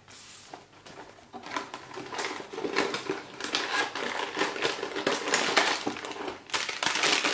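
A cardboard toy box and a clear plastic bag of small plastic building-block pieces being handled: dense crinkling and clicking rattle, starting about a second in and getting louder.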